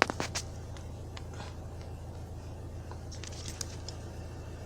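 Car engine idling as a low steady hum, with a few light clicks and taps at the start and again about three seconds in.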